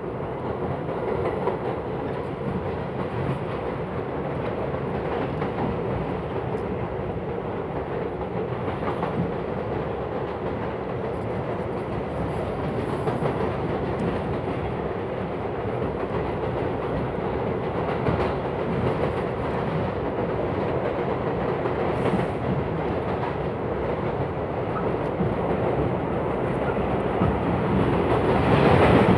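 Subway train running between stations, heard from inside the car: a steady rumble of wheels on rails that grows louder near the end.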